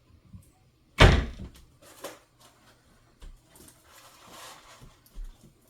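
A kitchen cupboard door shut with a loud knock about a second in, followed by a few lighter knocks and rustling as items are handled.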